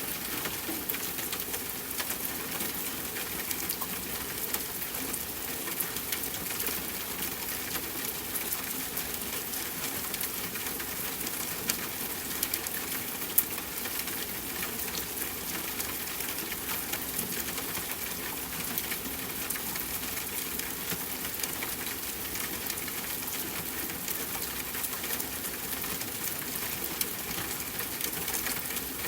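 Soft, steady rainfall: an even hiss of rain with many small drop ticks and the odd louder drop.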